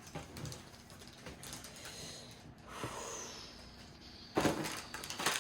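Rummaging through plastic parts bags and small kit parts: scattered rustling and light clicks, with a louder clatter of knocks about four and a half seconds in.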